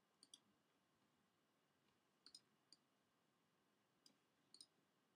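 Faint clicks of a computer mouse, several in quick press-and-release pairs, spaced a second or two apart, over a near-silent room.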